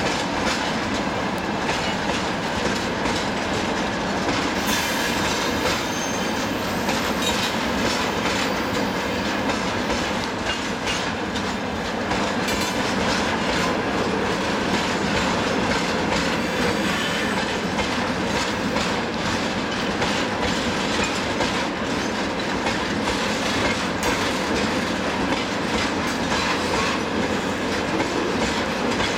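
Freight train wagons rolling past on steel rails: a steady rumble of wheels with the clickety-clack of wheelsets crossing the rail joints.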